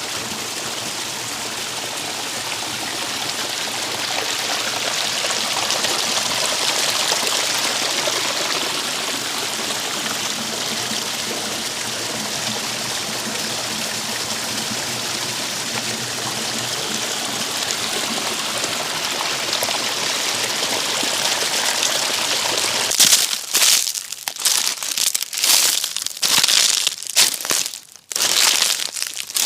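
A small creek flowing, a steady rush of running water. Near the end it gives way to footsteps walking on dry fallen leaves, an irregular series of crunches.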